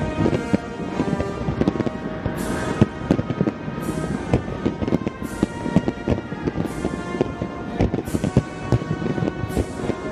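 Fireworks bursting over music: many sharp bangs throughout, with several crackling bursts that fade away, while the music's sustained tones carry on underneath.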